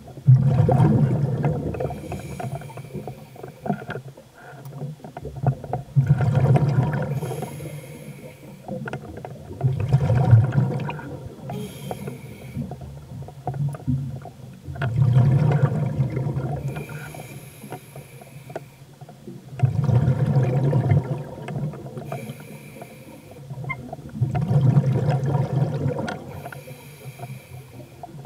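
Scuba diver breathing through a regulator underwater: six bubbly exhalations about every four to five seconds, each followed by the hiss of an inhalation through the regulator.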